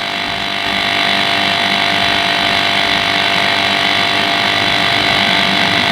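Small battery-powered electric tyre inflator running steadily, pumping air into an electric kick scooter's rear tyre with the pressure at about 120–125 kPa on its way to 150 kPa.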